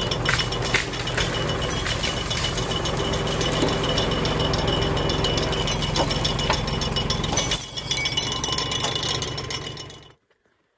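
Tractor engine running, with metallic rattling and clinking over it. It cuts off abruptly about ten seconds in.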